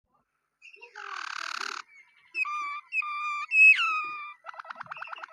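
Waterslager canary singing: a short raspy burst, then a few held whistled notes ending in a loud downward slur, then a fast trill starting near the end.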